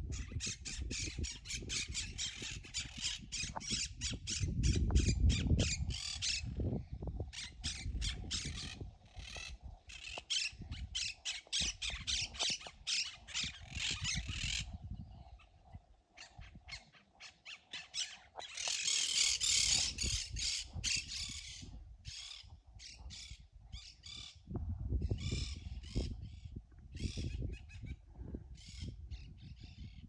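Birds squawking in long runs of rapid, harsh call notes, with a pause in the middle and a loud burst after it. Wind gusts rumble on the microphone twice, about a quarter of the way in and again near the end.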